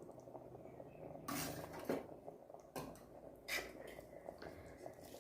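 Faint scraping and a few knocks of a spoon against a pressure cooker as the biryani rice is stirred.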